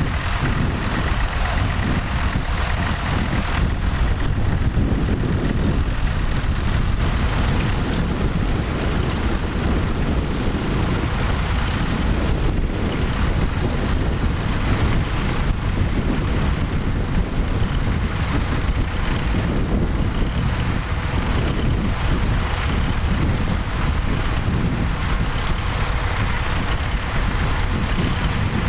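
Vintage tractor engine running steadily, a continuous low drone.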